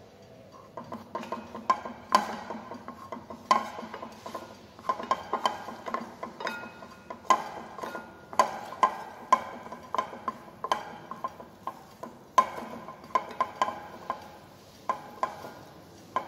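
Wooden spatula stirring chopped onion and garlic sautéing in a small saucepan: irregular knocks and scrapes of the spatula against the pan, which rings briefly with each knock.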